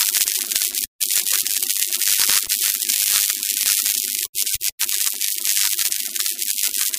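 Electric crackling sound effect for an intro animation: a dense, hissing crackle over a low hum. It cuts out briefly about a second in and twice more past the middle.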